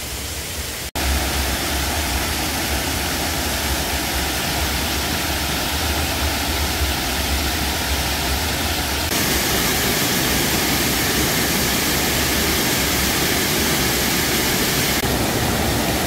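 Small mountain waterfall and stream rushing over rocks into a pool: a steady roar of falling water, briefly cut off about a second in, then growing brighter and louder about nine seconds in and easing back near the end.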